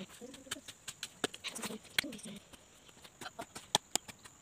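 A dove cooing a couple of low phrases in the first half, among irregular sharp clicks and snaps.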